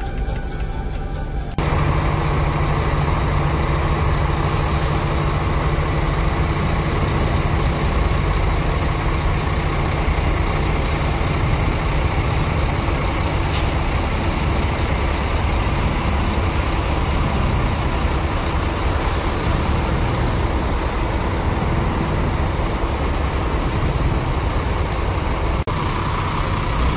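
Intercity bus running steadily, its diesel engine rumbling low under road noise, with three short hisses of air from the air brakes.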